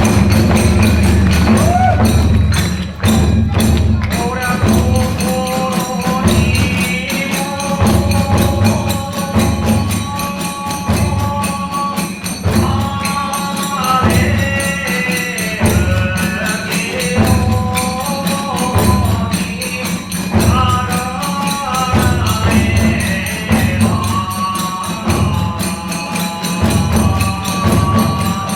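Live kagura hayashi accompaniment: transverse bamboo flutes play a melody over a steady beat of large and small drums and clashing tebyōshi hand cymbals.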